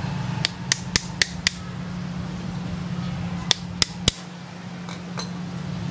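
Sharp plastic clicks from a motorcycle fuel pump assembly as a stiff-fitting new fuel filter is pressed onto it by hand: five quick clicks about four a second, then three more a couple of seconds later.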